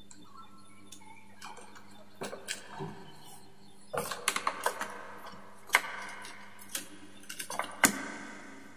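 Scattered sharp plastic clicks and knocks as wall double light switches and their covers are handled and set down on the board, the loudest near the middle and toward the end.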